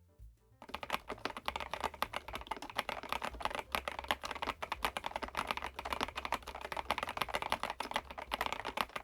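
Epomaker DynaTab 75X mechanical keyboard with Epomaker Flamingo switches being typed on quickly, a dense run of many keystroke clacks a second. The typing starts about half a second in.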